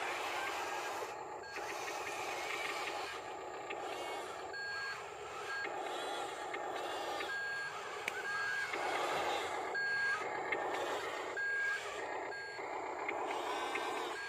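Huina RC wheel loader's electric drive whirring as it crawls over dirt, while its sound unit plays a series of short electronic reversing beeps from about four seconds in.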